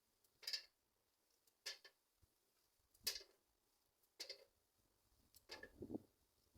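A few separate light clicks or taps, roughly one every second or so, with a short cluster of knocking and handling sounds near the end.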